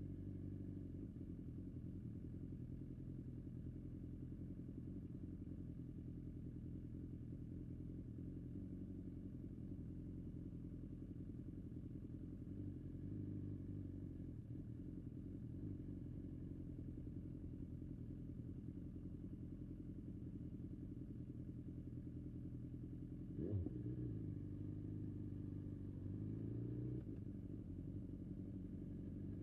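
BMW S1000XR's inline-four engine running at low road speed, mostly steady. About 23 seconds in there is a short knock, then the engine note rises as the bike accelerates for a few seconds before settling again.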